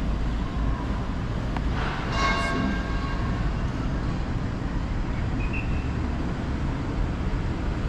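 Steady background rumble of city traffic heard from a high-rise balcony, with a faint held tone about two seconds in.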